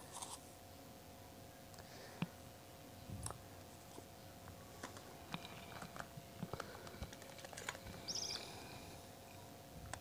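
Faint, scattered light clicks and taps of a teaspoon and a small drinking glass being handled as powdered hand-feeding formula is spooned into warm water, over a faint steady hum.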